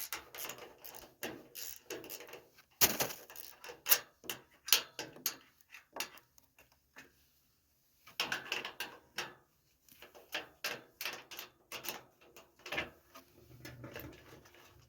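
A 9/16 wrench working loose the bolts of old steel gate hinge hardware: irregular metallic clicks and knocks, pausing briefly about seven seconds in.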